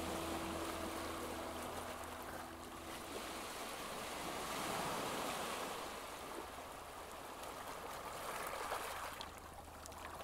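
Shallow sea water washing gently over stones: a soft, even rush that swells and eases. The last held notes of music fade out in the first few seconds.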